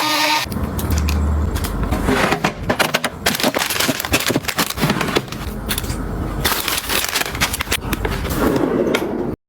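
Busy handling noise: rapid clicks, taps and crinkling of objects being picked up and set down. It cuts off suddenly near the end.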